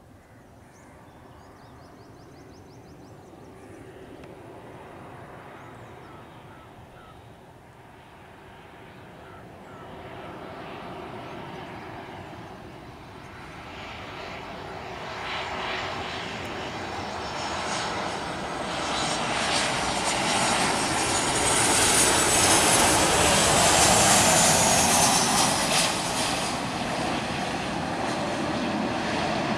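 Boeing 737-800's CFM56-7B turbofan engines on final approach, growing from faint to loud as the airliner closes in. A high whine falls in pitch around the loudest point, and the sound eases a little near the end as the jet reaches the runway.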